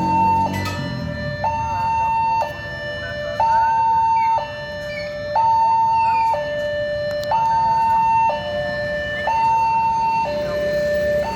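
Railway level-crossing warning siren sounding an alternating two-tone electronic signal, a higher and a lower tone each held about a second, warning that a train is approaching.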